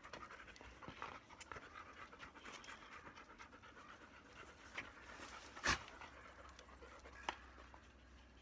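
Labrador retriever panting steadily, with a few sharp taps; the loudest comes just past halfway.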